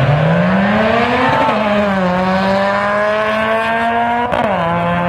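Car engine at full throttle accelerating down a drag strip: its pitch climbs, then drops at an upshift about a second and a half in, climbs slowly again, and drops at a second upshift with a sharp click about four seconds in.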